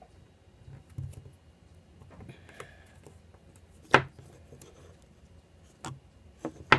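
Small handling noises while duct tape is fitted to a popsicle stick and wooden block: a soft rustle, then a few sharp clicks and taps, the loudest about four seconds in and near the end.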